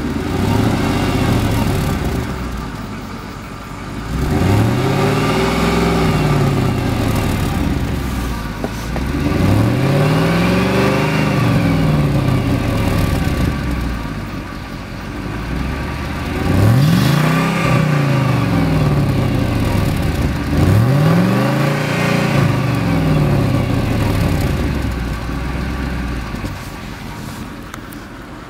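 Mercedes-Benz CLK 430's 4.3-litre V8 exhaust, fitted with a C36 AMG muffler, idling and being revved about five times. The first is a short blip about a second in, then four longer revs, each rising in pitch and falling back to idle.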